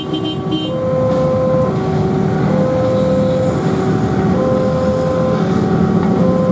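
Railway level-crossing warning alarm sounding: an electronic signal alternating between a higher and a lower tone, about one change a second, warning of an approaching train. It plays over the steady noise of road traffic.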